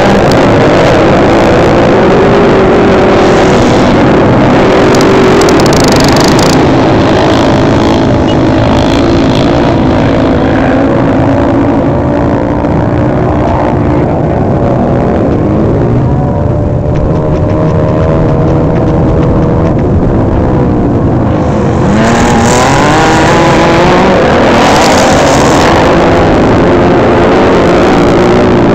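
Several racing road motorcycles on a sand track, engines at high revs, their notes overlapping and rising and falling as the bikes accelerate and pass. The pitch sinks for a few seconds past the middle, then climbs again sharply a little over twenty seconds in as the bikes open up.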